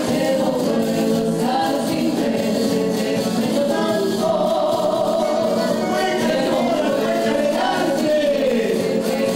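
Live Chilean cueca music: several voices singing together over guitars.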